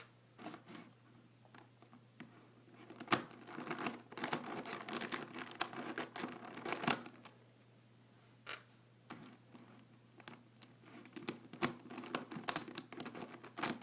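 Plastic pieces of a 5x5 Rubik's Cube being pried out with a flat screwdriver: irregular scraping and clicking of plastic on plastic and metal, with several sharp clicks, over a faint low hum.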